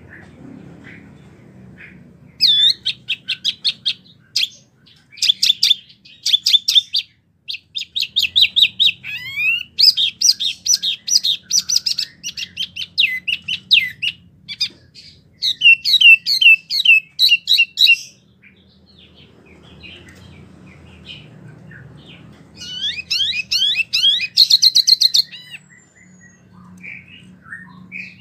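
A wambi mini songbird singing in loud, fast runs of rapidly repeated sweeping chirps and trills, in several bursts separated by short pauses. A faint low hum sits underneath.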